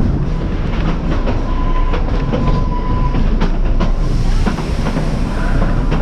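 Train cars rolling along the track: a steady rumble with wheels clicking over the rails, and a faint thin squeal in the first half.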